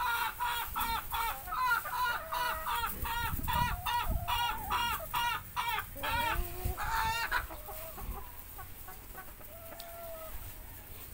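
White laying hens clucking and cackling in a fast run of short calls, about three a second, for the first seven seconds or so. After that only a few scattered, fainter calls.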